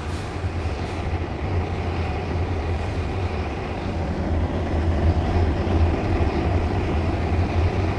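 Furnace running with a steady rush of flame over a deep low rumble. It grows a little louder around the middle as the camera inside catches fire.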